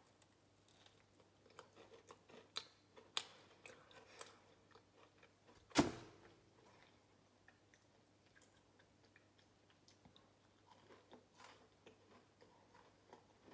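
A person chewing a mouthful of homemade brownie close to the microphone: soft, scattered clicks and crackles, with one louder sharp crack about six seconds in.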